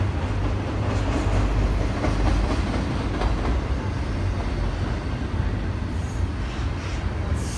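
Double-stack intermodal freight train rolling past: a steady rumble of wheels on rail with clicking from the wheels, and two brief high-pitched sounds near the end.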